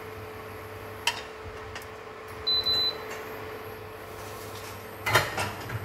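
A short, high electronic beep in two quick parts about two and a half seconds in, over a steady hum. There is a single click about a second in and a brief clatter near the end.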